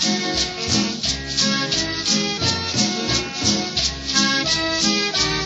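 Latin dance music from a sonidero: a steady rattling beat about three strokes a second over a bass line and melody.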